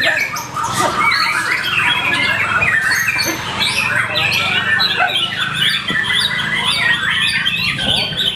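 White-rumped shama (murai batu) song at a bird contest: a dense, unbroken run of quick, varied whistles and chirps, with several notes overlapping, over a steady low hum.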